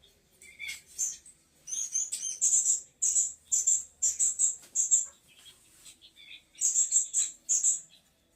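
Small songbirds chirping: quick series of short, high chirps, a few per second, in two runs with a brief lull between them.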